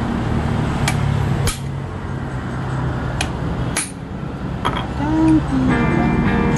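About five sharp, irregularly spaced metal-on-metal taps from a steel drift rod being tapped against a tapered roller bearing (ball race). The taps are seating the bearing down onto a Yamaha R15 V3's steering stem.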